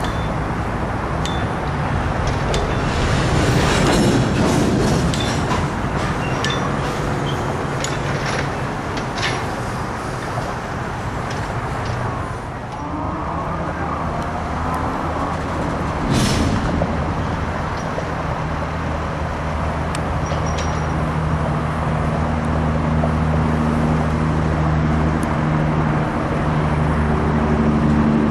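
Rail-yard noise: a diesel engine running steadily under a broad rumble, with a few sharp metallic clanks. The engine hum grows louder near the end.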